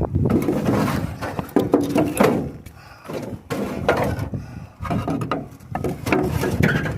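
Repeated knocks and clattering of objects being handled, in uneven bursts.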